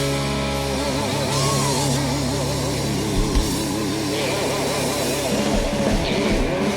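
Live slow blues-rock band music. After a short break the band comes back in on a sustained chord, under a lead line held in wide vibrato.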